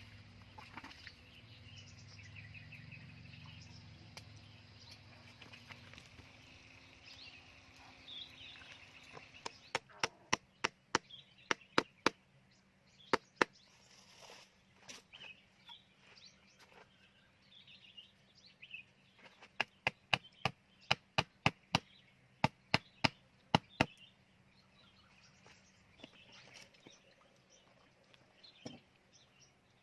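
Chopping on a wooden board: several runs of sharp strikes at about three a second, with pauses between the runs. Birds chirp faintly throughout.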